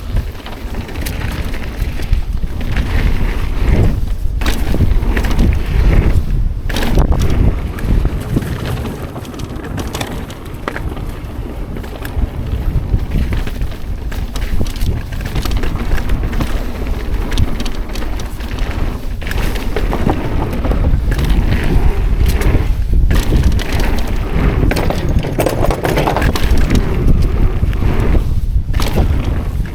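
Wind buffeting the microphone of a mountain biker's action camera during a fast trail descent, the low rush swelling and dipping with speed, with scattered knocks and rattles from the Yeti SB130 bike and its tyres over the dirt.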